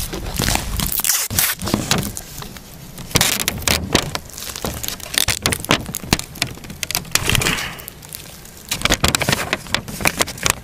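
Adhesive tape being pulled and torn, with close crackling and scraping handling noise right at the microphone: a run of irregular cracks and scrapes, with a short hissing rip about seven seconds in.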